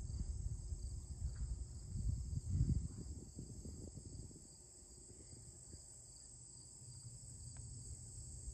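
A steady, high chorus of crickets chirping in the grass. A low rumble in the first three seconds fades out after that.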